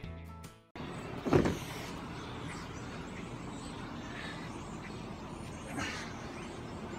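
Background music ends in the first moment, followed by steady outdoor background noise. A brief, louder sound comes about a second and a half in.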